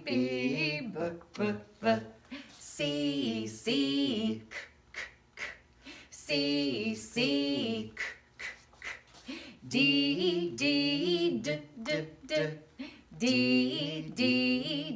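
A woman and a man chanting alphabet letters and their sounds in a sing-song voice, phrases of about a second broken by short, clipped letter sounds repeated several times.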